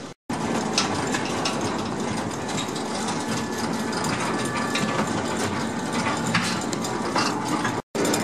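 Tram transfer table (traverser) moving along its rail: its shaft-driven steel wheels and drive gear running with a steady mechanical clatter and scattered clicks.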